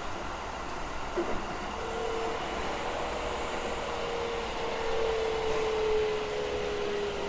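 Keikyu 1000 series train's Siemens 'Doremifa' VVVF inverter whine over steady rail running noise: a single clear tone comes in about two seconds in and slowly falls in pitch as the train slows.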